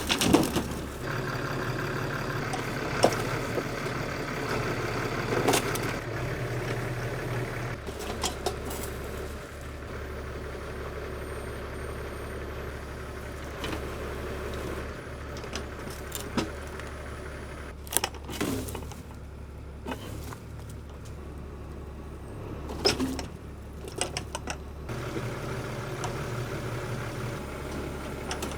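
Tractor engine running steadily, its note changing a few times, with scattered sharp knocks and metallic clanks.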